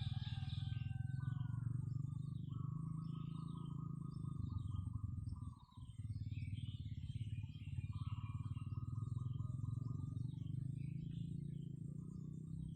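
Several birds chirping and calling, with two long, even trills of about two seconds each. A steady low rumble runs underneath and drops out briefly about halfway through.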